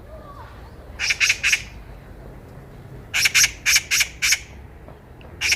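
Oriental magpie giving harsh, chattering calls in short runs: three about a second in, a longer run of about six a little after three seconds, and another run starting near the end.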